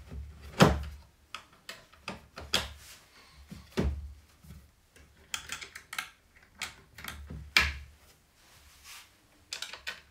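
Irregular knocks and clunks of a drill-press motor and its sanding disc being shifted and set down on the wooden base of a homemade disc sander, the loudest knock about half a second in.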